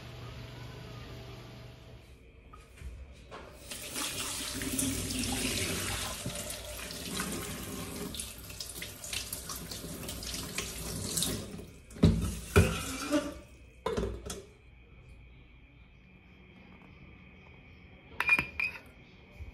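Kitchen faucet running into a sink for several seconds while hands rinse something under the stream; the water then stops and a few loud knocks follow, with a couple of light clicks near the end.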